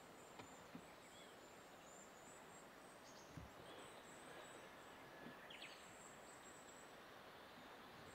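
Near-silent outdoor ambience with faint, high-pitched chirping in short runs and a few soft clicks.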